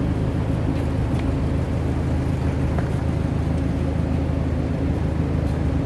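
A steady low drone of a running vehicle, even throughout with no change in pitch.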